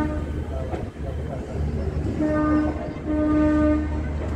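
Train rolling slowly with a steady low rumble while a train horn sounds a steady note: a held blast ends right at the start, then two short blasts follow about two and three seconds in.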